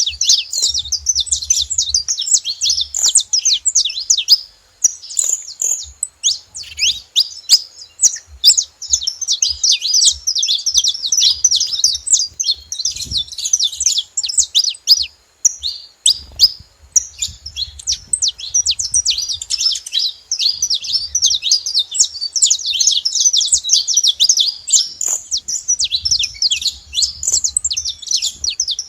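Saffron finch calls: a dense, unbroken stream of rapid high chirps, with short lulls about 4 and 15 seconds in.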